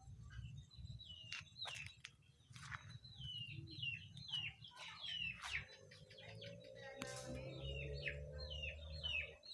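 Small birds chirping: quick, repeated short chirps that drop in pitch, a few each second, faint over a low rumble. A steady low drone joins about halfway through.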